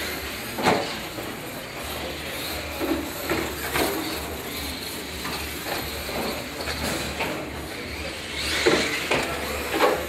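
Radio-controlled monster trucks running on a carpeted course, with sharp knocks as they bang over and land off the ramps, loudest about half a second in and near the end.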